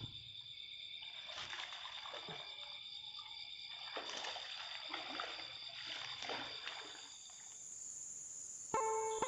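Water splashing in irregular bursts, over a steady high-pitched drone like insects. Music comes in near the end.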